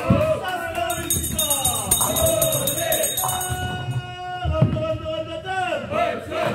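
Music with singing voices. A rhythmic high jingle runs from about a second in to about three and a half seconds, and a few notes are held steady in the middle.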